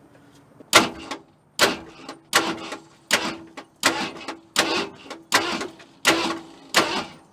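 V8 engine blipped over on the starter with the key, ignition disabled, in sharp pulses about every three-quarters of a second starting about a second in. It is being turned over to spit excess oil out of an open spark plug hole after oil was added for a wet compression test, so the engine won't hydrolock.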